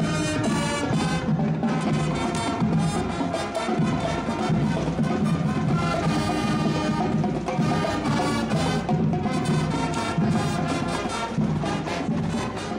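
High school marching band playing a brass-and-drum tune with a steady beat.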